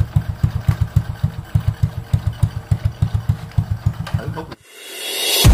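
Single-cylinder four-stroke engine of an old Honda Dream motorcycle idling with a steady, even beat, about seven pulses a second, running again after standing unused for ten years. It cuts off about four and a half seconds in, followed by a rising whoosh.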